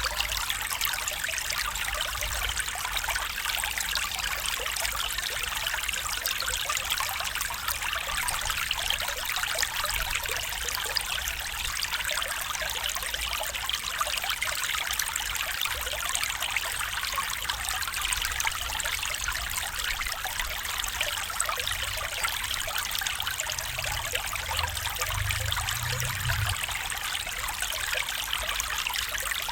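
Small stream trickling and babbling over stones, a steady, even water sound. A faint low rumble comes in briefly near the end.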